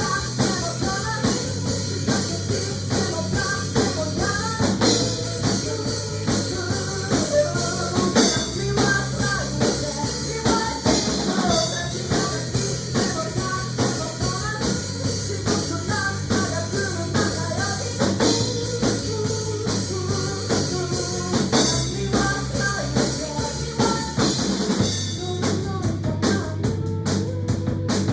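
Band music with a steady drum-kit beat and a bass line that moves between held notes, under a melody line; the drumming gets busier near the end.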